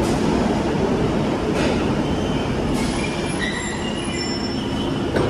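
London Underground Bakerloo line 1972 Stock train pulling into the platform and braking to a stop, its wheels and brakes letting out high squeals over the rumble about halfway through. A sharp knock comes right at the end.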